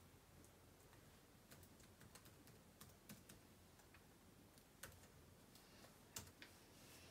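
Faint, irregular key clicks of a laptop keyboard being typed on.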